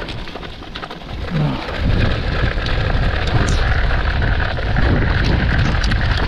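Mountain bike riding down a wet dirt trail: a low rumble of wind buffeting the handlebar camera's microphone and tyres rolling over the ground, with frequent small clicks and rattles from the bike. The rumble gets much louder about two seconds in.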